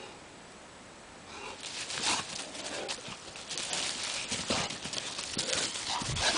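Two Bullmastiffs playing: their paws scuffle and thud through dry leaves and grass in quick irregular bursts, starting about a second in and growing busier toward the end.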